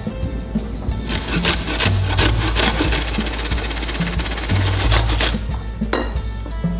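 Background music with a repeating bass line, over a rasping, rubbing sound of food preparation.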